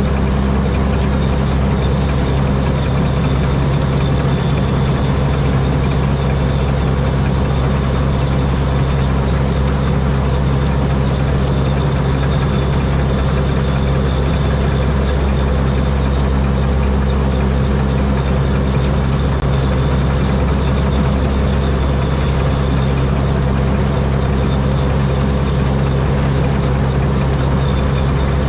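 Rice combine harvester's Mitsubishi 225-horsepower turbocharged diesel engine running steadily, with no change in engine speed and a faint steady high whine over its low hum.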